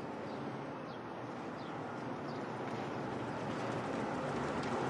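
A car driving up, its engine and tyre noise growing steadily louder as it approaches, with a few faint bird chirps early on.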